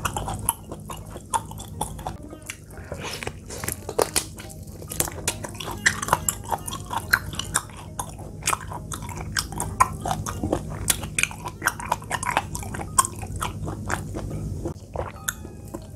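Close-up chewing and biting of boiled pig's trotter: many short mouth clicks and smacks, over a steady low hum.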